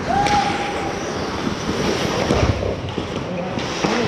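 Ice hockey play on a rink: a steady wash of skates scraping the ice, with sharp clacks of sticks and puck, one about half a second in and more around two and a half seconds in.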